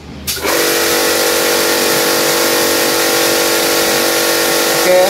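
Kärcher HD 5/11 high-pressure cleaner running with the spray gun fired: pump and water jet start about a quarter second in, run steadily with a constant tone over a hiss, and cut off suddenly near the end. It runs smoothly with no hiccuping, the stutter fault now cured by the repair.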